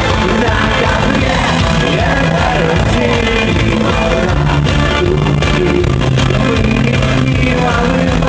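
Rock band playing live, with singing over the instruments.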